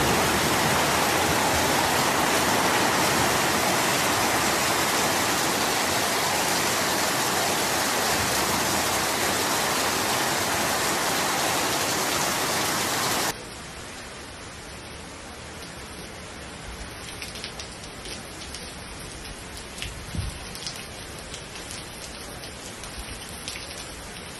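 Heavy rain pouring down, a loud, even hiss. About 13 seconds in it cuts to a quieter stretch of rain with scattered ticks of drops striking close by.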